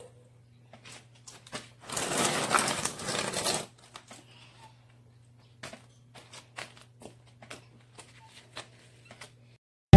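Rustling and scraping of gloved hands handling potting soil: one burst about two seconds in, lasting about a second and a half, then scattered light taps and clicks.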